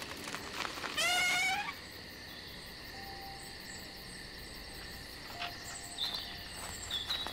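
Night-time woodland ambience of crickets or other insects chirping steadily, with a loud warbling animal call about a second in that lasts about half a second, and a few faint short chirps later on.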